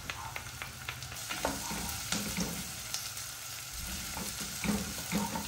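Sliced onions sizzling in oil in a non-stick frying pan, stirred with a wooden spatula that scrapes and taps against the pan. Ginger and garlic paste is spooned in and stirred through the onions.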